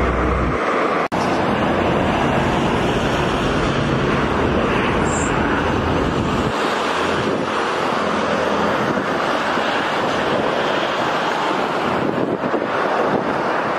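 Steady rush of wind on the microphone mixed with tyre and road noise from a car moving at highway speed, with a momentary dropout about a second in.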